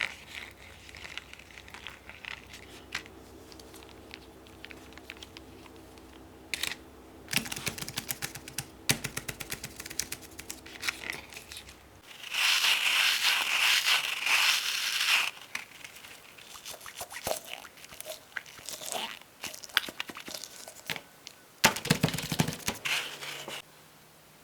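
Small fidget toys being handled: scattered clicks and taps, a dense run of clicks, then a loud noisy stretch of about three seconds in the middle, and a cluster of clicks with a low thump near the end.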